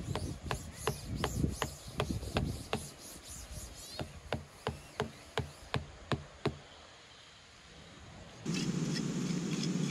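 A run of light, evenly spaced knocks or taps, about three a second, stopping about six and a half seconds in. Near the end a steady hissing noise starts suddenly.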